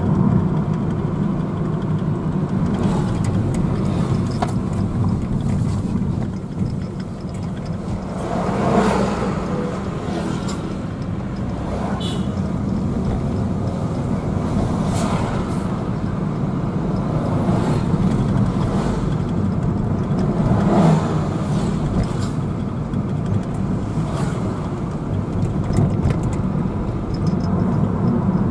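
Steady engine and road rumble heard inside a moving car's cabin, with several passing vehicles swelling up and fading, one of them a large coach going by about halfway through.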